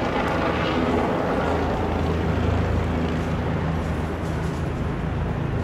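Steady rumble of city traffic, with the low hum of a vehicle engine swelling a little midway.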